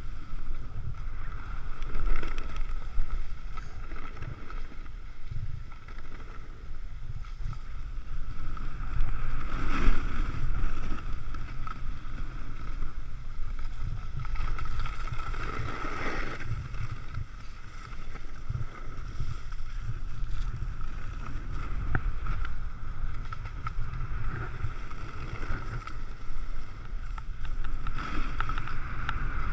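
Wind buffeting an action camera's microphone during a fast downhill run on snow, a steady low rumble that swells a few times, with the hiss of snow sliding underfoot.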